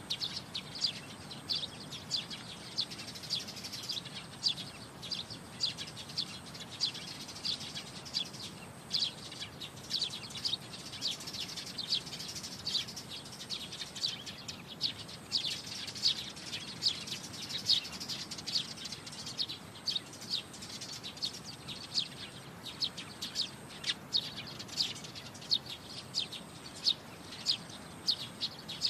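Small birds chirping busily, many short sharp chirps a second overlapping without a break.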